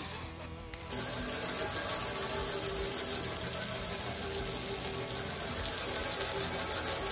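Garden hose jet spraying water onto a steel griddle top, a steady hiss and splash of water on the metal that starts about a second in. The rinse washes off loosened rust and debris after scrubbing. Background music plays faintly underneath.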